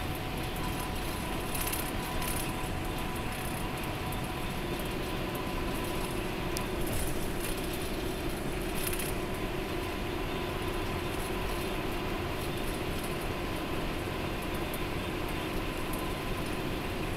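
Express coach cruising at highway speed, heard from inside the passenger cabin: a steady mix of engine drone and tyre noise on the concrete road, with light rattles now and then.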